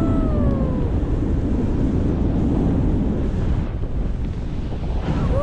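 Strong wind buffeting the microphone, a loud steady low rumble. Near the start a long pitched tone falls away over about a second.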